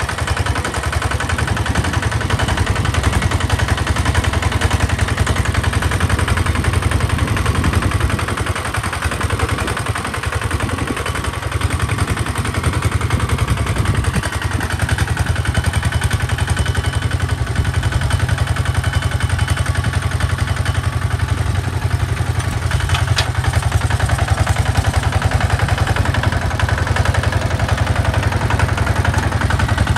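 Hinota walk-behind two-wheel tractor's single-cylinder diesel engine running steadily under load as it pulls a plow through sandy soil.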